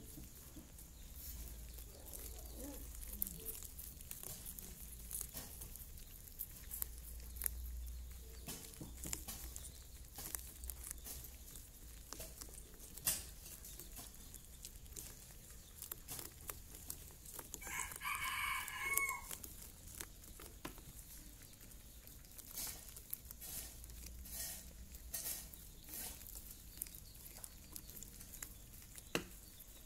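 Baby rabbits gnawing kernels off an ear of raw corn: scattered small crunches and clicks. A louder, short pitched call sounds once, a little past the middle.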